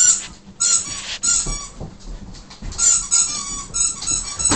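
Rubber squeaky toy squeaking in quick runs of short, high-pitched squeaks, several squeaks to each run, with short gaps between the runs.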